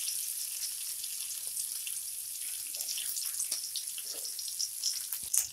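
Curry leaves and ginger strips sizzling in hot oil in a kadai for a tempering (tadka): a steady hiss with small crackles, and a few sharper pops near the end.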